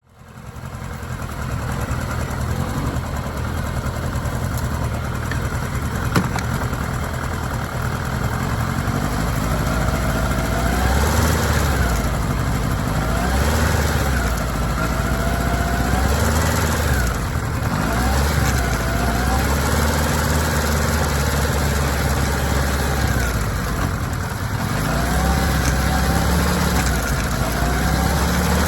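Kawasaki ZR-7S air-cooled inline-four engine running steadily. From about ten seconds in, the revs rise and fall several times. The bike has an abnormal drive-chain noise whose cause is being sought.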